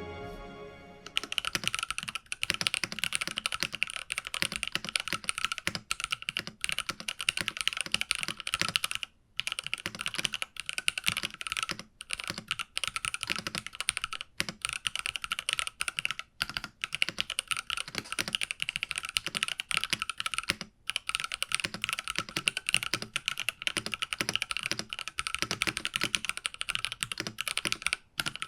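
Continuous fast typing on an IQUNIX F65 Hitchhiker mechanical keyboard with TTC Gold Pink linear switches: a steady stream of key clacks, broken by a few brief pauses. A fading music tail is heard in the first second before the typing starts.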